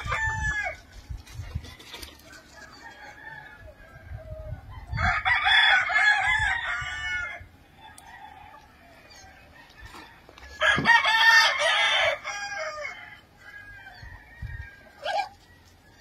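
Gamefowl roosters crowing: two crows, one about five seconds in and another about eleven seconds in, each lasting about two seconds.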